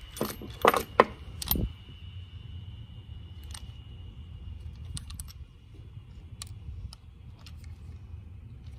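Small hard parts being handled and set down: a cluster of sharp clicks and knocks in the first two seconds, then scattered light clicks over a steady low background rumble.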